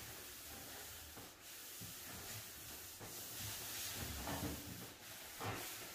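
Soft rubbing swish of a T-bar pad applicator being dragged across a hardwood floor, spreading polyurethane finish. There is a short, louder sound about four seconds in and another near the end.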